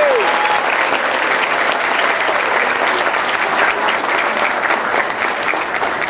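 Audience applauding with a dense, steady clatter of many hands clapping, easing off slightly toward the end.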